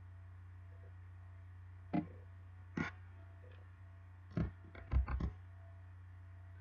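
Sharp computer mouse clicks: one about two seconds in, another just under a second later, then a quick run of four or five between about four and a half and five and a half seconds. Under them runs a steady low electrical hum.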